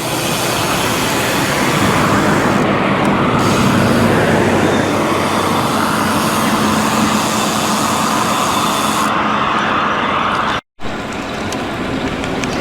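Steady rush of wind and road noise from riding along a road, loud and even, with a faint low hum under it. The sound cuts out for an instant about ten and a half seconds in.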